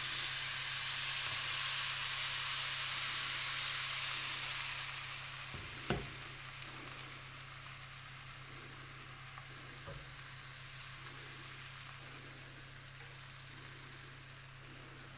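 Pancake batter sizzling in a hot coated frying pan greased with coconut oil, loudest for the first few seconds and then fading as the batter sets. A couple of light clicks of the ladle against the pan come about six and ten seconds in.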